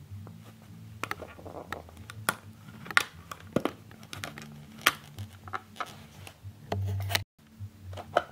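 Clear hard-plastic display case being handled and opened: a string of irregular clicks, taps and light scrapes of plastic on plastic, ending with the case set down on a cloth.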